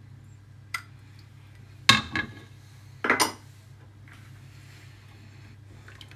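A light tick, then two sharp clinks about a second apart, from a glass bowl and a spatula knocking together as cream is scraped out of the bowl into a pan of milk and semolina. A low steady hum runs underneath.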